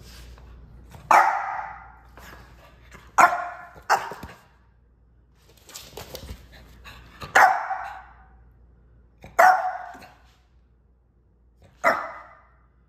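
French bulldog puppy barking: six short, sharp barks spaced one to two and a half seconds apart.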